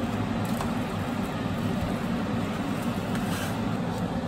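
A steady low rumble, the loudest sound, with metal tongs tossing spaghetti in a stainless steel pot on top, giving a few faint clinks.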